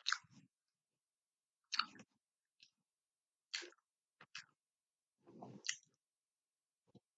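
Chewing and mouth sounds of someone eating, in about six short separate bursts with dead silence between them.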